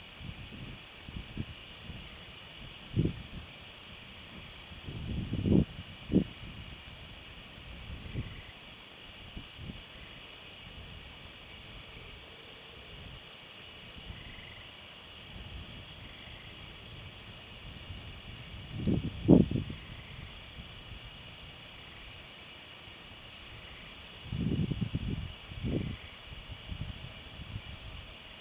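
Steady chorus of night insects, crickets trilling in several high bands without a break. A few brief low thumps stand out about 3, 6, 19 and 25 seconds in, the loudest near 19 seconds.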